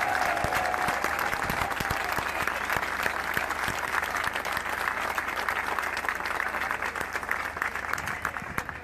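A large crowd applauding, the clapping dying down near the end.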